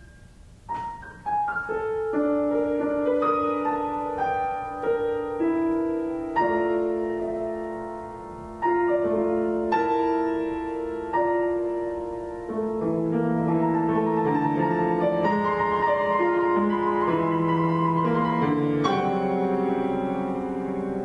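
Grand piano playing a slow contemporary chamber-music passage: single notes and chords struck one after another, each ringing on and fading. It enters after a brief hush about a second in.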